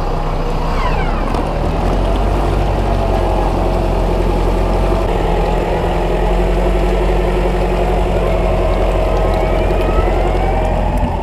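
An off-road 4x4 SUV's engine running hard under load, its pitch wavering slowly up and down as it works through mud.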